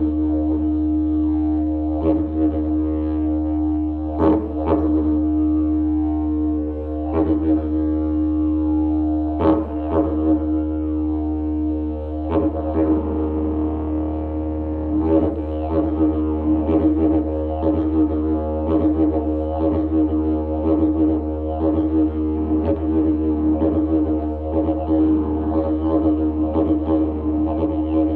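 Didgeridoo played as one unbroken low drone with a strong ringing overtone above it. In the first half it is punctuated by a few sharp accents about two seconds apart; from about halfway in, the playing turns into a faster, steady rhythmic pattern.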